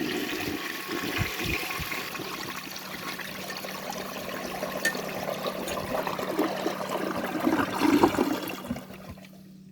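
A 1967 Crane Canada Calypso tank toilet flushing. Water rushes through the bowl, carrying away a test load of dirt, and swells a little near the end. It dies away about nine seconds in: a strong flush.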